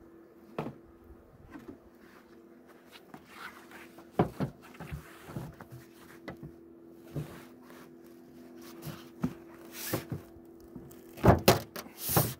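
Wooden beehive lid being set down over a feed-sack cover and handled with gloved hands: scattered knocks and rustles, a cluster about four seconds in and the loudest pair near the end, over a faint steady low hum.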